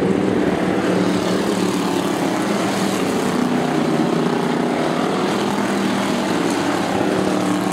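A pack of hobby stock race cars running at speed, several engines blending into a loud, steady drone.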